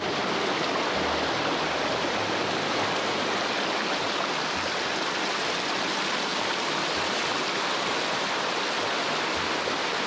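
River water rushing steadily over the broad, smooth rock ledge of Kamafuchi Falls, a shallow cascade.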